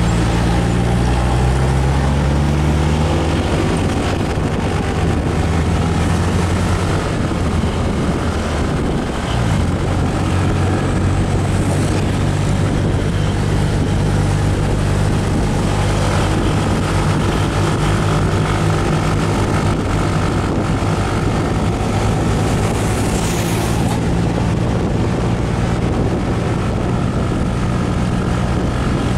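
Motorcycle engine running steadily while riding, with wind noise over the microphone. The engine note dips briefly about nine seconds in, then holds steady again.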